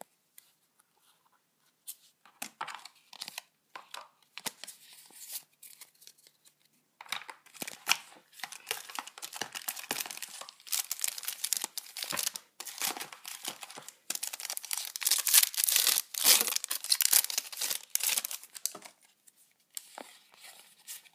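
A Yu-Gi-Oh! booster pack's foil wrapper being torn open and crinkled in the hands. Scattered crackles start about two seconds in, turn into a long dense crackling about a third of the way through, and thin out near the end.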